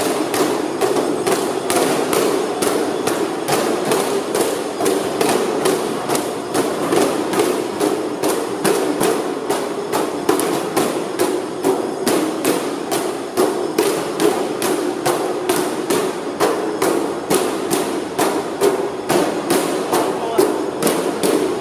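Sharp knocks in a steady, even rhythm, a little over two a second, over a continuous dense din.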